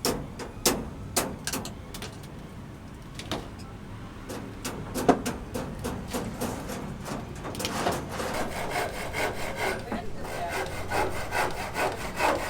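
Several sharp knocks on wood, then from about halfway in a hand saw cutting through timber in quick, even back-and-forth strokes.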